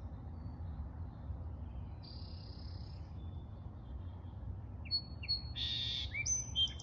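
A small bird singing: faint scattered high notes at first, then a louder run of quick chirps and sliding notes from about five seconds in, over a steady low background rumble.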